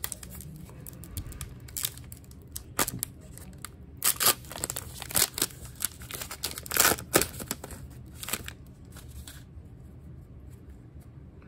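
Trading card pack wrapper being torn open and crinkled by hand: a run of sharp crinkles and rips, loudest in the middle, that dies down near the end.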